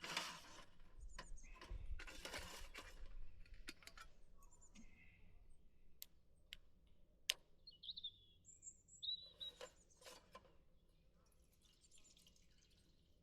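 Faint, quiet ambience with scattered sharp clicks and short rustles, and a few brief high chirps about eight to ten seconds in.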